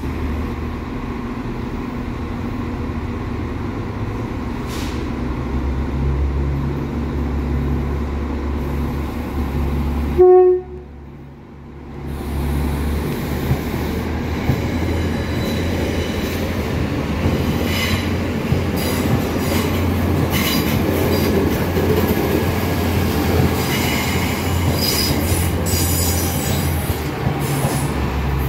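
NI Railways Class 3000 diesel multiple unit with its engines running steadily and a short horn blast about a third of the way in. Afterwards the engine sound builds as the train moves along the platform, with wheel squeals and rail clicks in the last third.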